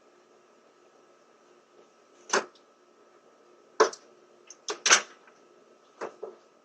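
A handful of short, sharp knocks at uneven intervals, the loudest two close together near the middle, over the steady hiss of a doorbell camera's microphone.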